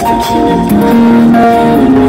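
Music played loud through a car audio system with 15-inch subwoofers: held keyboard-like melody notes over heavy bass.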